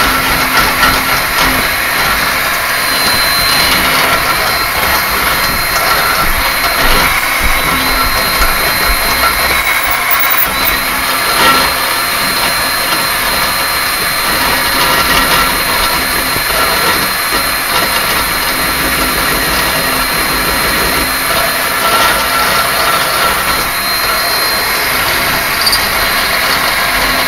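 A small motor running steadily, with a high whine that dips briefly several seconds in.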